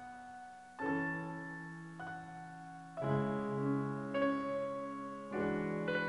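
Background piano music: a slow run of chords, a new one struck about once a second and each fading out before the next.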